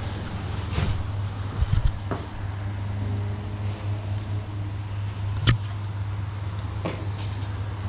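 A steady low hum with a few short knocks and clicks scattered through it, the sharpest about five and a half seconds in.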